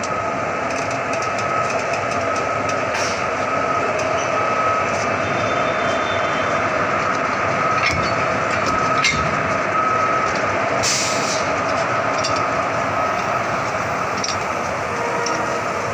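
A locomotive running close up: a steady mechanical hum with a high whine over it. A few sharp metallic clicks come a little past halfway.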